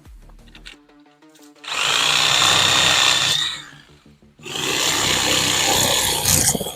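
DeWalt corded reciprocating saw cutting through bush branches about an inch and a half thick, in two runs of about a second and a half each with a short pause between. The first run starts about two seconds in.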